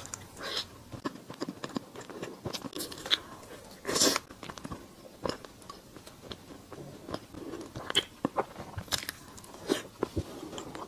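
Close-miked biting and chewing of a soft mooncake with a runny chestnut and salted-egg-yolk filling: scattered small mouth clicks and smacks, loudest about four seconds in.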